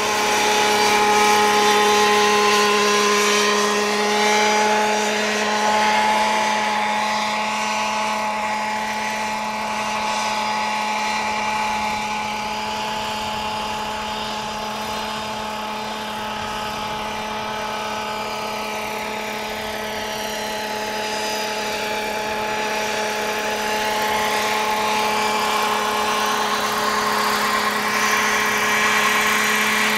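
Radio-controlled scale Robinson R22 model helicopter in flight: its motor and rotors give a steady high-pitched whine over a hum. It fades somewhat in the middle and grows louder again toward the end as the model flies closer.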